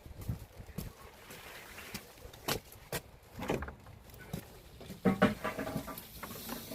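Footsteps with a few sharp clicks and knocks, then a brief pitched sound near the end.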